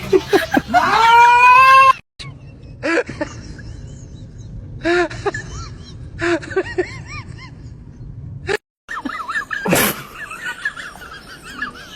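A cat yowling loudly in long, wavering calls that cut off after about two seconds. A few short, quieter meows follow, a second or two apart.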